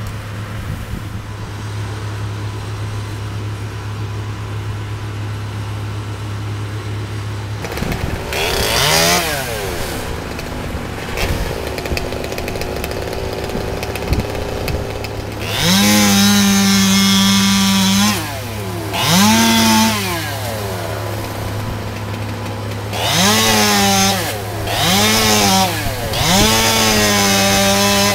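Chainsaw idling steadily, then revved up again and again in bursts of one to three seconds, its pitch climbing and falling with each burst.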